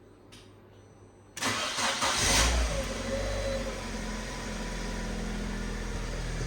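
Fiat 500 engine cranked over by the starter about a second in, catching quickly and settling into a steady idle: the first start after a timing belt and water pump change.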